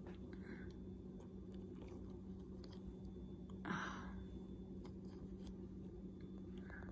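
Quiet room with a steady low hum, a single short rustle about halfway through, and a few faint clicks.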